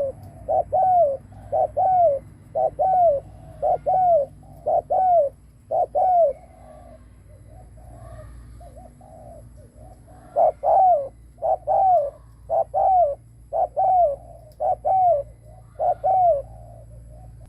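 Spotted dove giving its rapid 'gù' coo: short, arched notes at about two a second in a long run, a few seconds' break in the middle, then another run.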